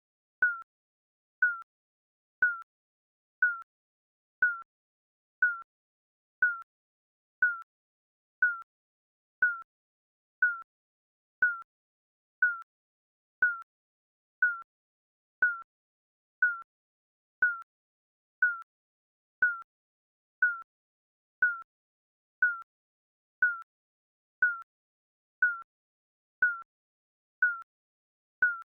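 Digital countdown timer beeping once a second: a short, high electronic beep that fades quickly, with silence between the beeps.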